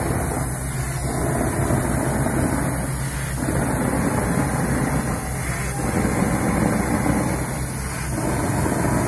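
Shotcrete rig spraying concrete onto a rock face: a steady engine hum under a loud rushing hiss from the nozzle. The noise surges and eases about every two and a half seconds.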